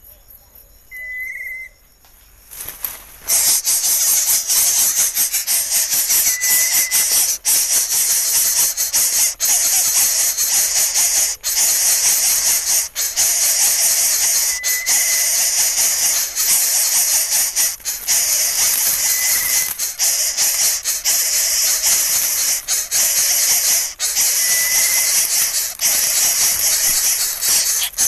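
Greater coucal nestling hissing loudly and continuously, starting about three seconds in, as a threat display with its beak gaping. A short high whistle note sounds every few seconds.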